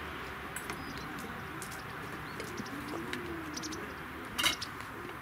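Light clicks and knocks of camp cookware being picked up and set down on a small table, the loudest a sharp knock about four and a half seconds in, over steady outdoor hiss. A low wavering call is heard about three seconds in.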